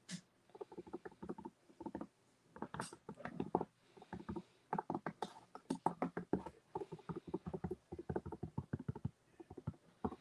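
Fingers and palm rubbing acrylic paint across a stretched canvas in quick, irregular strokes, with a couple of short pauses.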